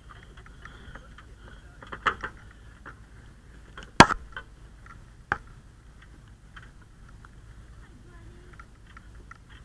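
Handling and movement noise from a firefighter's gear: a few sharp knocks and bumps, the loudest about four seconds in, with light ticks and rustle between.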